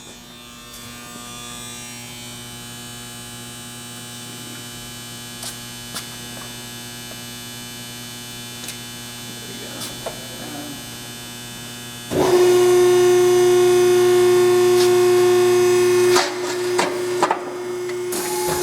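Hydraulic power unit of a Wysong 60-ton press brake, its pump driven by a 575-volt electric motor, running with a steady hum. About twelve seconds in, a much louder steady whine sets in for about four seconds as the ram cycles under pump pressure, then falls away, followed by a few knocks.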